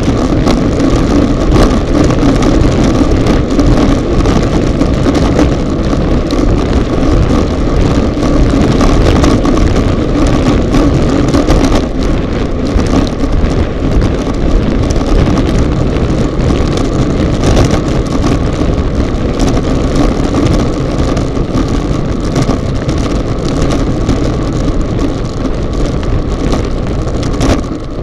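Steady, loud wind rushing over a bike-mounted action camera's microphone at racing speed (about 45–55 km/h), mixed with tyre and road noise and a constant rattle of small knocks.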